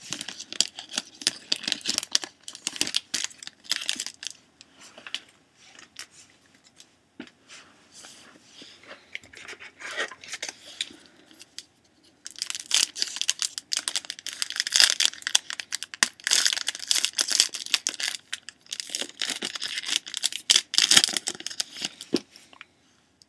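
Hockey card pack wrappers being torn open and crinkled by hand: dense crackling for the first few seconds, softer scattered crinkles, then a long, louder stretch of crackling from about halfway through.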